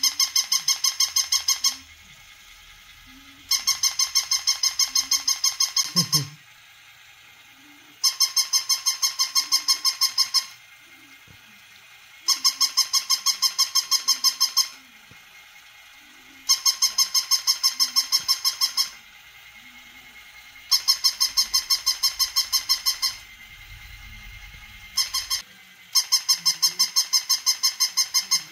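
Battery-operated toy puppy giving out rapid electronic yaps through its small speaker, in runs about two seconds long that repeat about every four seconds, one run cut short near the end.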